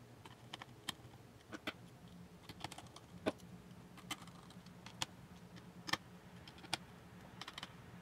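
Faint, irregular light clicks and taps of a small screwdriver and tiny screws on a laptop's metal CPU heatsink and logic board, as the heatsink screws are set back in.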